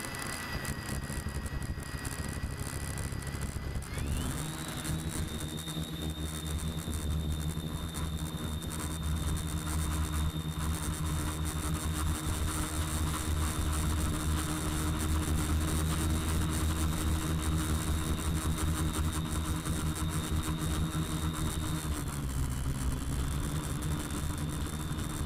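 Quadcopter's electric motors and propellers, heard from the camera on board: a steady whine that jumps up in pitch about four seconds in as the motors spool up for takeoff, then holds steady in flight and dips briefly near the end.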